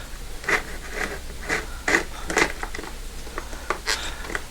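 A series of short, irregular scrapes and clicks, a few a second, over a steady low hum.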